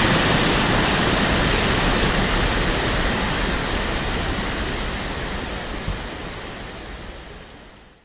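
Waterfall rushing over rocks, a steady even roar of falling water that gradually fades out.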